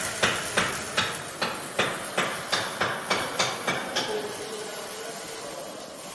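A quick series of metallic knocks ringing in the steel dryer, about three a second, getting quicker and fainter and dying out about four seconds in, leaving a steady hiss.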